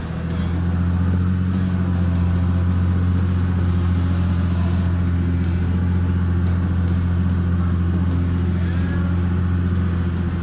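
Jeep Gladiator Rubicon's diesel engine pulling slowly uphill in four-wheel low: a steady low drone that swells over the first second, then holds an even pitch.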